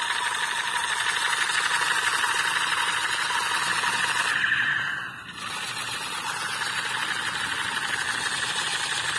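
Battery-powered light-up toy AK-47 playing its electronic machine-gun sound effect through a small speaker: a high, rapid rattling tone, held for about five seconds, a short break, then again.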